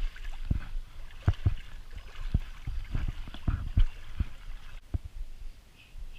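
Irregular low knocks and bumps, close to the microphone, over the gurgle of river water.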